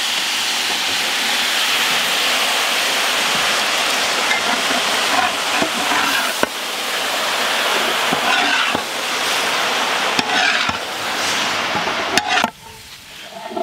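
Tuna pickle sizzling hard in hot oil in a large metal uruli just after vinegar is poured in, with a ladle stirring and knocking against the pot now and then. The sizzle cuts off suddenly near the end.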